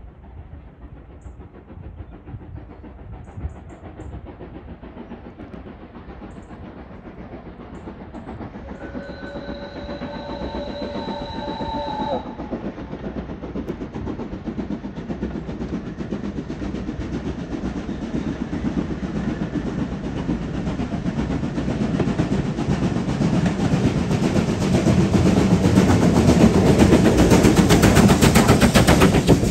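Steam train approaching, its running noise growing steadily louder. The locomotive sounds its whistle, a chord of several tones held for about three seconds, about nine seconds in. It is at its loudest near the end, with rapid beating and clatter as it draws close.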